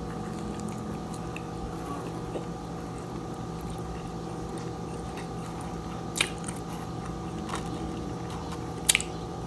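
A person chewing pizza with her mouth close to the microphone, with two short sharp clicks, one about six seconds in and one near the end.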